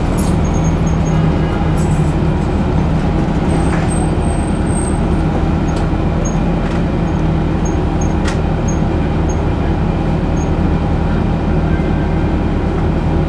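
Orion VII first-generation diesel-electric hybrid bus running, heard from on board: a steady low drone of engine and drive, with a few faint clicks and rattles.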